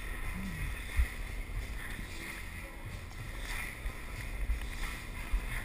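Low rumbling handling noise from a body-worn camera as a climber moves on the wall. There is a sharp knock about a second in and another near the end.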